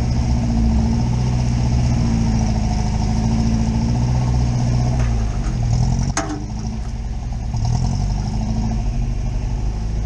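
Car engine running steadily at low revs, heard close up, while the car is towed on a strap through mud. About six seconds in there is a single sharp clack, and the engine note dips, then rises again soon after.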